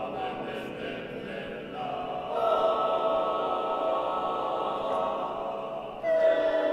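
Mixed chamber choir singing a cappella in long held chords, with a new, louder chord entering about six seconds in.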